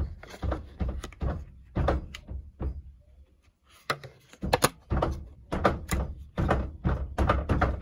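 Hard plastic phone case being handled and flexed close to the microphone: a run of irregular plastic thunks, taps and clicks.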